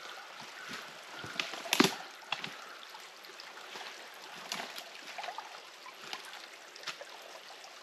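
A small snowmelt stream trickling, with splashing and sloshing as a person works by hand in the flooded channel. Scattered knocks run through it, the loudest cluster about two seconds in.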